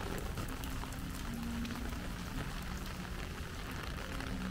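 Steady rain falling, with many sharp little ticks of single drops striking surfaces close by.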